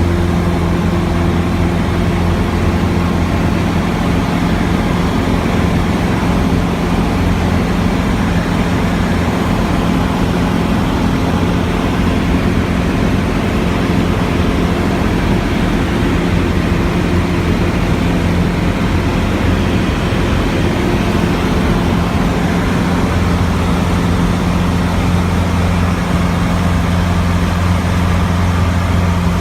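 Cessna 150's four-cylinder Continental O-200 engine and propeller running steadily in flight: a loud, constant drone with a steady low hum that does not change.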